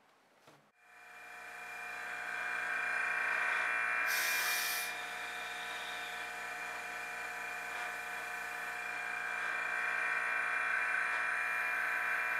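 Electric vacuum pump starting and running with a steady hum, pulling a vacuum on a resin-filled wood-stabilizing chamber. There is a brief hiss of air about four seconds in.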